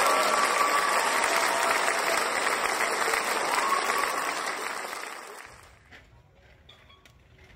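A crowd clapping and cheering, fading out over about two seconds around the middle, leaving faint outdoor quiet.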